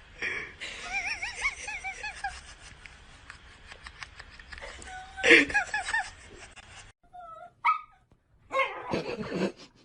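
Dog whimpering and yipping in a run of short, wavering whines, with a louder cry about five seconds in.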